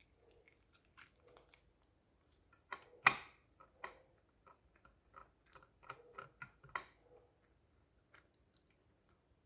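A person chewing and biting food close to the microphone: a run of small, irregular clicks and crunches, the loudest crunch about three seconds in.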